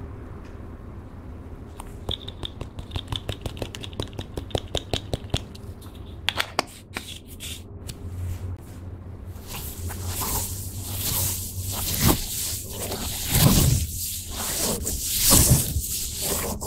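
Small jar of gold mica powder tapped to shake powder out onto slime: a run of quick light clicks, about four a second. About halfway through, a hand presses and squishes the clear slime, with a louder, uneven sticky squelching and hissing.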